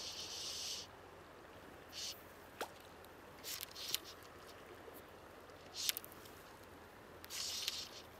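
Fly line hissing through the rod guides in five short pulls spaced a second or two apart, with a few sharp clicks, over a faint steady stream.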